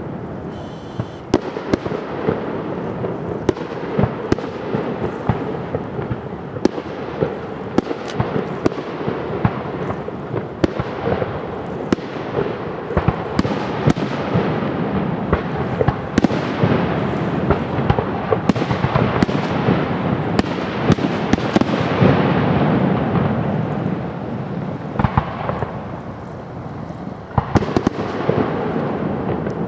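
Fireworks display: aerial spherical shells bursting one after another, many sharp bangs over a steady dense din of overlapping reports, easing briefly about twenty-five seconds in before another cluster of bangs.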